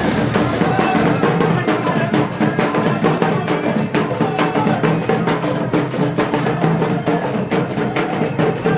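Music: drums played in a rapid, dense beat over sustained held tones, without singing.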